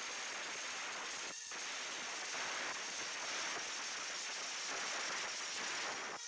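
Makita router spinning on a Lowrider2 CNC machine: a steady high whine over a hiss, with a brief break about a second and a half in.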